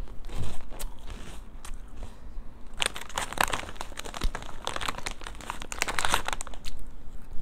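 Crunching of cheese-flavoured puffed snack balls being chewed, with a few scattered crunches at first, then the plastic snack bag crinkling densely for a few seconds as a hand rummages in it from about three seconds in.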